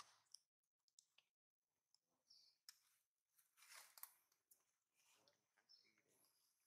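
Near silence, broken by faint scattered clicks: a sharp click at the very start and a soft rustle about four seconds in.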